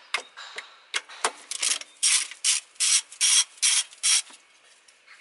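Socket ratchet clicking in a run of quick back-and-forth strokes, about two to three a second, undoing a 10 mm nut on a plastic engine cover. A few light clicks come before the run.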